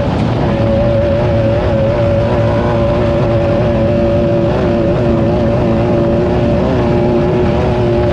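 Class 9 off-road race car's engine running hard at a steady, nearly unchanging pitch, with a dense low rumble underneath.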